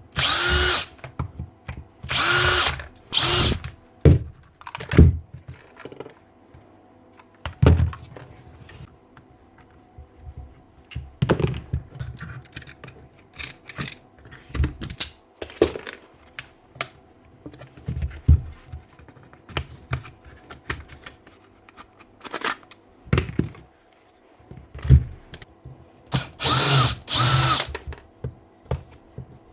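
Cordless drill-driver run in five short bursts, each spinning up quickly: three in the first few seconds and two near the end. Between the bursts come scattered knocks and clicks of parts being handled.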